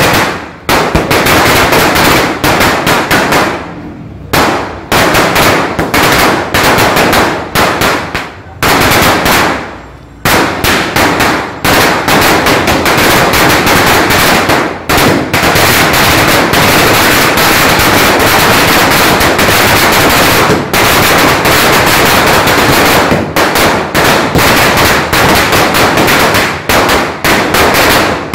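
A 5000-wala string of firecrackers (Gnanavel Fireworks blue tube) bursting in a rapid, continuous chain of bangs, like machine-gun fire. It breaks off in a few short lulls, the longest about 4 and 10 seconds in, then runs on steadily.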